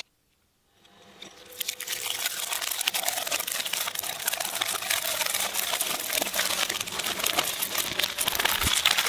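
A shredder chewing through crinkly, crunchy material: a dense run of crackling and crunching. It fades in about a second in, after a moment of dead silence.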